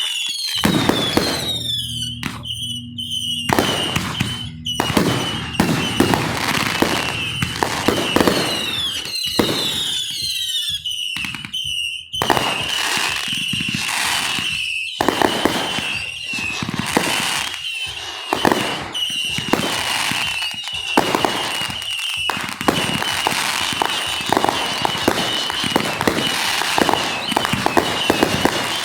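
Aerial fireworks display: a dense run of booms and crackling bursts, with whistling shells gliding in pitch in the first few seconds and again about eight seconds in, and a high whistle held through much of the barrage.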